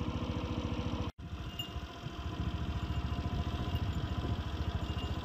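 An engine running at a steady idle, with an even low pulsing throughout. The sound cuts out for an instant about a second in.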